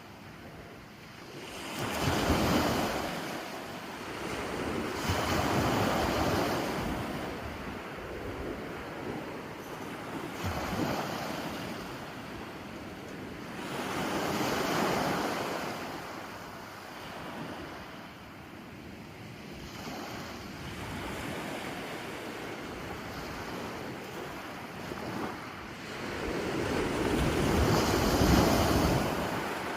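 Ocean waves breaking on shore, the surf swelling and falling away in slow surges every several seconds, with wind noise on the microphone.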